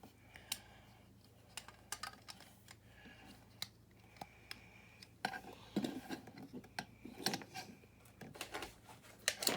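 Small plastic building bricks being handled and pressed together: a scatter of short sharp clicks and light rattling, busier in the second half.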